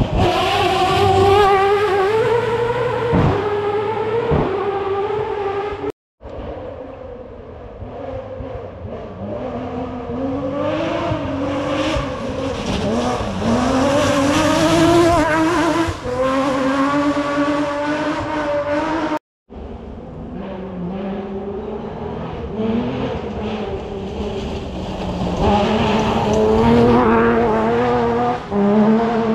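Rally cars at full throttle on a muddy dirt stage, engines revving hard, their pitch climbing and dropping with each gear change as the cars approach and pass. The sound cuts off abruptly twice between passes.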